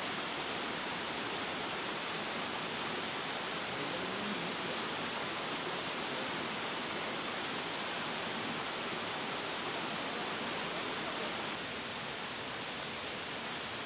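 Steady hiss of flowing stream water in a forest, with a faint thin high whine running through it. Both drop slightly near the end, where the whine stops.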